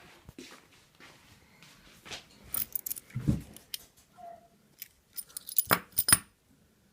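Handling noise: light metallic clicks and clinks in two short clusters, with a dull thump about three seconds in.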